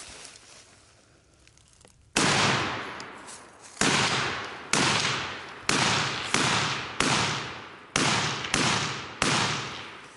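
An AR-15/M4-pattern 5.56 mm rifle firing about nine semi-automatic shots. The first comes about two seconds in, and the rest follow at an uneven pace of roughly one every half second to second and a half. Each shot is followed by a long, ringing echo.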